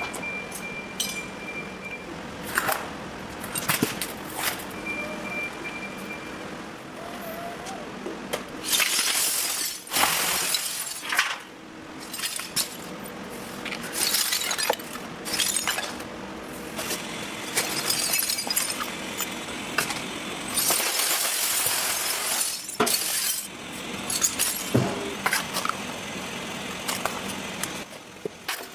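Glass clinking and clattering in a glass works: many irregular sharp clinks and crashes, with a few longer rushing spells of noise.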